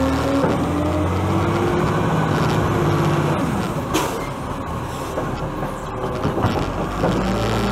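Side-loading garbage truck's diesel engine running as the truck moves along, its pitch rising and shifting with engine speed. A short sharp air hiss comes about four seconds in.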